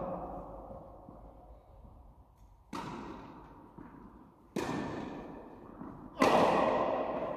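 Tennis ball struck by a racket and bouncing on the court: three sharp pops, each followed by a long echo from the large indoor tennis hall. The third, about six seconds in, is the loudest.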